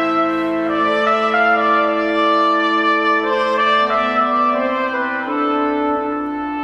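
Trumpet playing a slow line of held notes over sustained organ chords. The notes change about once a second.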